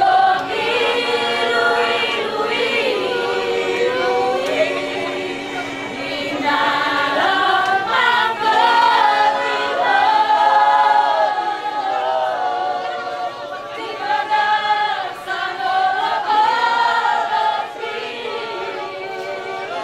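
A group of mixed voices, mostly women's, singing a song together without instruments, with sustained, held notes.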